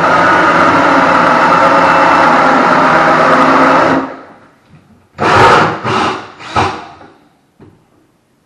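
Power drill spinning a hole saw through a wooden door with light pressure, a steady whine for about four seconds before it stops. Three short bursts of sound follow a second later.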